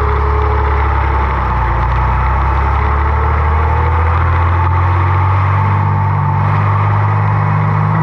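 Oliver 1755 tractor's engine running steadily under way on the road, its note rising a little about two-thirds of the way through.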